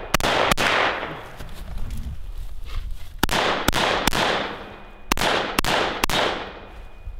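Geissele URGI 5.56 mm AR-15-pattern rifle firing about seven shots: a quick pair at the start, then after a pause of about two and a half seconds another pair and a string of three. Each shot echoes for around a second.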